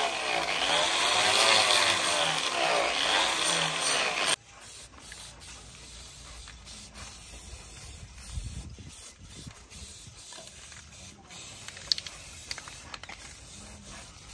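Electric angle grinder with its disc grinding a steel axe head, its whine rising and falling in pitch as the load on the disc changes. It cuts off abruptly about four seconds in, leaving much quieter sound with scattered clicks and the faint hiss of an aerosol spray can.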